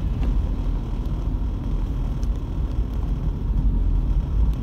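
Steady low rumble of a car driving on a wet road, heard from inside the cabin.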